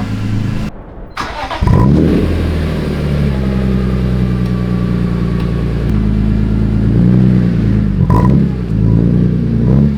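BMW E46 M3's S54 straight-six running, with a quick rev shortly after a brief break about a second in, then steady running and a few rises and falls in engine speed near the end.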